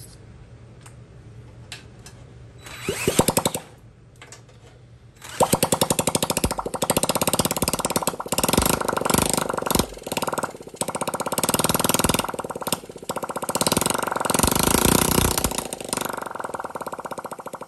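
Honda Z50's small single-cylinder four-stroke engine, on choke, briefly sputters about three seconds in, then fires about five seconds in and keeps running with a rapid, rattly beat that rises and falls with the throttle and dies down near the end. It is running for the first time with the points and valves not yet adjusted.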